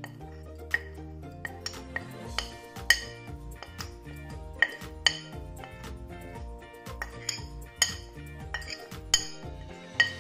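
Metal spoon clinking and scraping against a ceramic plate as powdered spices are pushed off it, in a run of irregular sharp taps.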